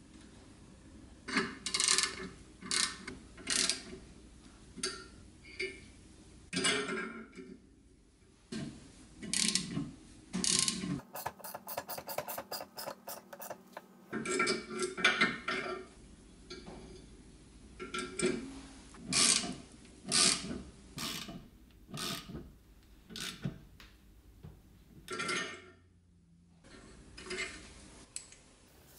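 Steel flaring tool and brake line being worked in a bench vise: irregular metal clinks and scraping strokes, with a quick, even ticking for about three seconds in the middle.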